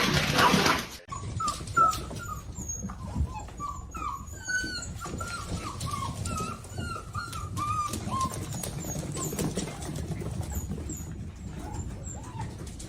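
Dog whimpering in a long run of short, high whines, several a second, thinning out and fading after about eight seconds. A loud, noisy sound fills the first second and then cuts off abruptly.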